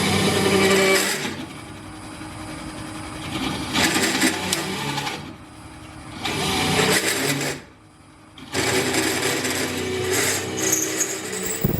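Nova Viking drill press cutting through steel, running in several loud stretches with short easings in between as the cut is fed down.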